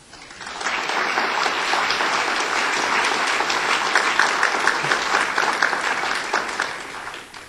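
An audience applauding, a dense patter of many hands clapping that swells in over the first second, holds steady and dies away near the end.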